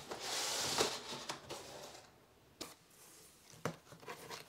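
Packing being handled inside an opened cardboard box: a burst of rustling in the first second, then a few light knocks and clicks as foam inserts and plastic-bagged accessories are touched.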